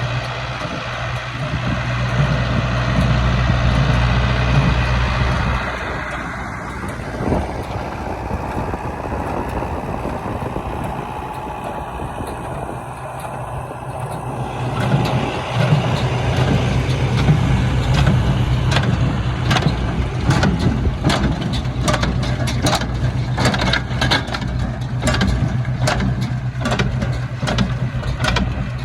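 International 574 tractor engine working hard, pulling a Massey Ferguson MF 20 small square baler. The engine is loud for the first few seconds, eases off, then comes back loud about halfway through, while the baler knocks rhythmically through the second half.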